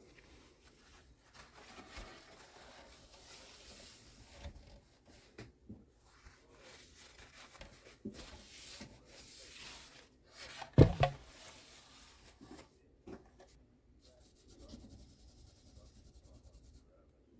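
Hand rubbing on the wooden body of a Gibson A1 mandolin during its repair, in uneven back-and-forth strokes. There is a sharp double knock on wood about eleven seconds in.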